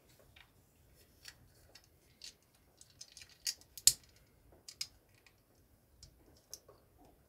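Plastic LEGO bricks clicking as they are pressed together and handled, a string of irregular small clicks with the sharpest one about four seconds in.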